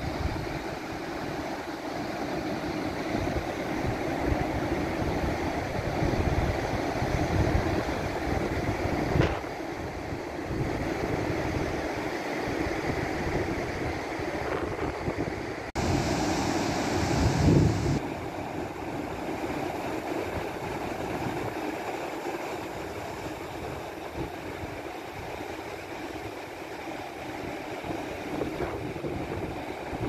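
Pacific Ocean surf rushing steadily, with wind buffeting the microphone in low gusts. About halfway through the sound cuts abruptly to another recording of the surf, which opens with a brief hiss and a stronger gust of wind.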